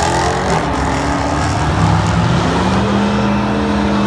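Car engine revving hard, its pitch climbing about two and a half seconds in and then held steady at high revs.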